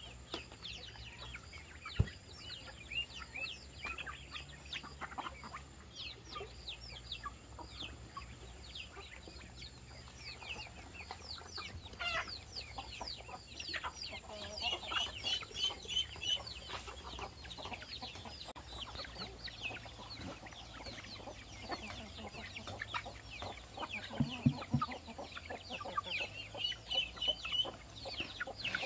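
Chickens calling: a steady chorus of short, high, falling chirps and trills, with a few low clucks late on and one sharp click about two seconds in.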